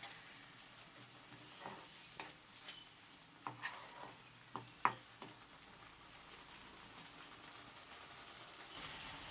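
Grated white pumpkin pulp simmering in its own juice in a non-stick kadai with a faint steady sizzle as the water cooks off. A wooden spatula stirs it, knocking and scraping against the pan several times in the middle.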